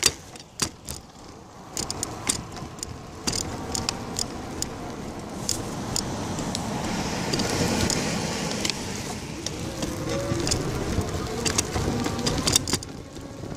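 Bicycle riding over pavement: a steady rumble of wind and tyre noise, with frequent sharp rattling clicks.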